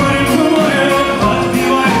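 Live band music with a man singing lead into the microphone.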